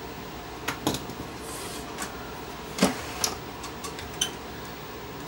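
About five light clicks and knocks, spaced irregularly, from hardware being handled while a bracket is fitted to the flyback transformer inside a CRT TV/VCR combo.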